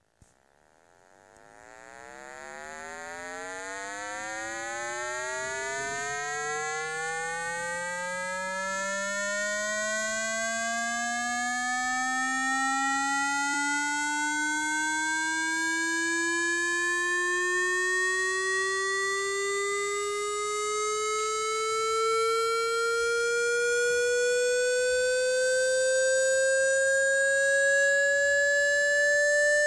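Electronic water-eject tone for clearing a phone speaker: a buzzy synthesized tone with strong overtones that fades in over the first couple of seconds and then climbs slowly and steadily in pitch, siren-like. It is played loud so that its vibration shakes water out of the speaker grille.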